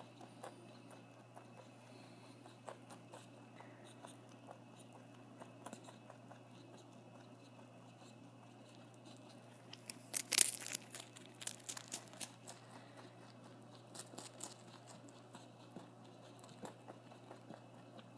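Pet rabbit chewing a cracker right at the microphone: small crunches throughout, with a louder burst of crunching and crackling about ten seconds in, over a faint steady hum.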